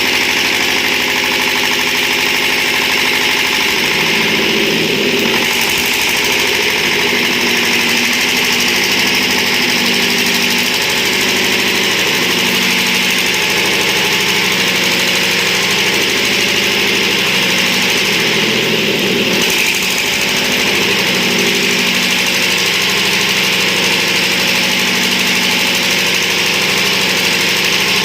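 Diesel engine of a 200-amp welding generator running steadily, with two brief changes in its note.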